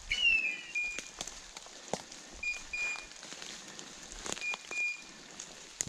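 Electronic beeper collar on a hunting dog, sounding pairs of short high beeps about every two seconds, after a brief falling chirp at the start. A few sharp crunches of footsteps on dry leaves and twigs come in between, the loudest about two seconds and four seconds in.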